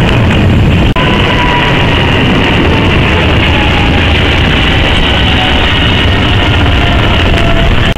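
Twin-engine widebody jet airliner passing low overhead: a loud, steady jet roar with a whine that slowly falls in pitch as it goes over.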